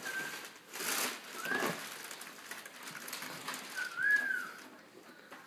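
Cardboard boxes and packaging rustling and crinkling as football helmets are unboxed, with a few short high squeaky tones, the longest rising and falling about four seconds in.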